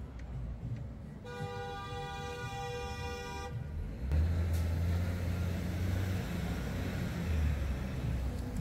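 A vehicle horn sounds one steady honk of about two seconds, starting about a second in. From about four seconds a vehicle engine runs loud and low close by, amid street traffic.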